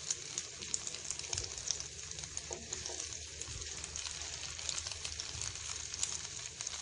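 Egg and potato omelette frying in hot oil in a kadai: a steady sizzle with many small crackles.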